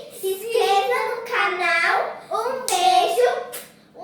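Children's high voices singing or chanting in three short phrases, with a couple of sharp hand sounds near the end.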